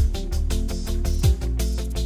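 Background music with a steady beat: deep kick-drum hits, sustained bass notes and a quick rhythmic ticking above them.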